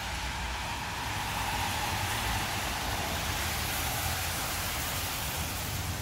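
Steady hiss of rain and of tyres on wet roads from passing traffic, over a low rumble.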